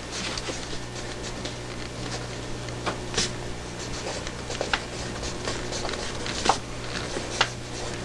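Zebra M402 mechanical pencil with 0.5 mm lead writing on lined notebook paper: irregular light scratches and small ticks as the lead strokes and lifts off the page, over a steady low hum.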